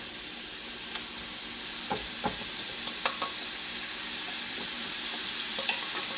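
Turkey burger patties sizzling steadily on a hot George Foreman electric contact grill, with a few light taps as more patties are handled and set down.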